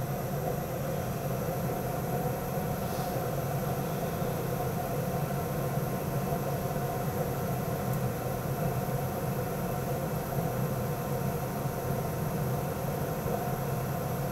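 Gas-fired furnace running with a steady hum, its inducer motor going and its burners lit.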